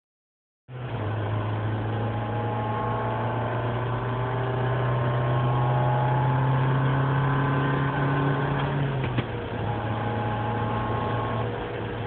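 Renault Scenic II 1.6 16V four-cylinder petrol engine running steadily at idle with a deep drone (Brummen), with one short click about nine seconds in, after which the drone eases slightly. The uploader puts the drone down to a failed catalytic converter, whose broken ceramic pieces vibrate and rattle inside it.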